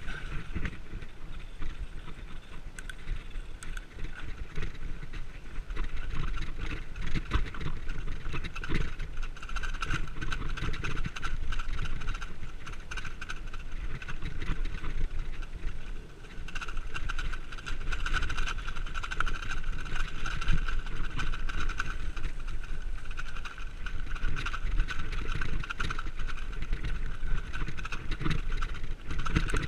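Mountain bike rolling fast down a rough dirt singletrack: steady tyre rumble on the ground with constant small rattles and knocks from the bike jolting over bumps. A steady high buzz runs underneath, stronger in stretches.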